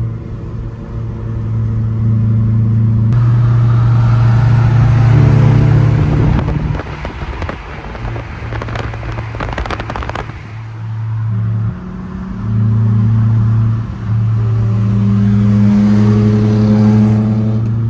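Loud aftermarket exhaust of a lowered BMW E46 sedan at highway speed: a steady droning note that steps up and down in pitch as it accelerates and shifts, with a run of crackling pops in the middle.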